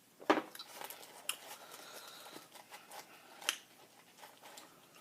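Close-up eating sounds: a sharp bite, then a run of small crackly chewing clicks, and another sharp click about three and a half seconds in.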